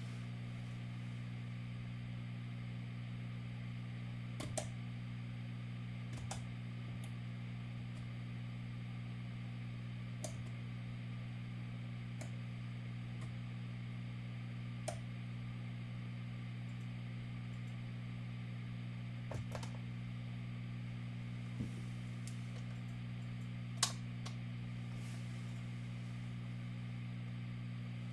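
A steady low hum with about eight short, scattered clicks over it, the sharpest a few seconds before the end.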